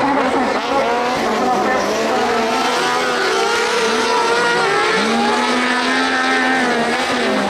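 Several kart cross buggies racing on a dirt track, their high-revving motorcycle engines overlapping and rising and falling in pitch as the drivers accelerate and lift off through the bends. One engine picks up sharply about five seconds in.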